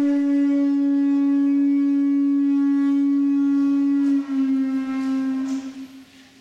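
A single long blown note on a wind instrument, held steady, then dipping slightly in pitch about four seconds in and dying away near the end.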